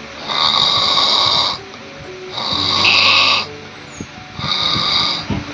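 A person snoring loudly: three long snores about two seconds apart, each lasting about a second. This is the noisy breathing of a partly blocked upper airway.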